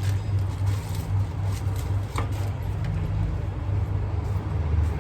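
Steady low rumble of road traffic, with a single short click a little over two seconds in.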